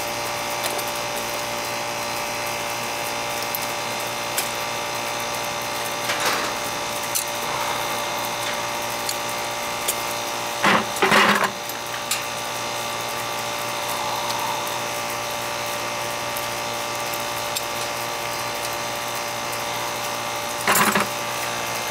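A 2001 Ruud 2.5-ton central air conditioner's outdoor condensing unit running steadily, with the hum and whine of its compressor and fan. The system is low on refrigerant, which the technician puts down to a leak. A couple of brief, louder noises break in about halfway through and again near the end.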